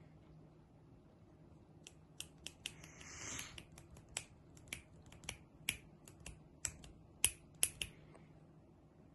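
Keys being pressed on a disassembled laptop's keyboard: a run of irregular sharp clicks starting about two seconds in and stopping near the end, with a brief rustle about three seconds in.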